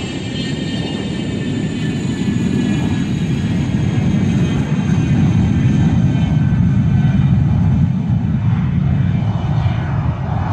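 Cessna Citation II business jet's twin Pratt & Whitney JT15D turbofans at takeoff power as it rolls and lifts off. A steady rumble builds to its loudest about two-thirds of the way through, and high turbine whine tones slide slowly lower as the jet passes.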